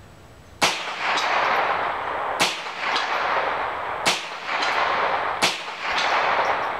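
Four shots from a Ruger 10/22 .22 LR rifle firing 36-grain lead solids, one every second and a half or so, each followed about half a second later by the clang of the bullet striking a steel frying pan downrange, with ringing after each.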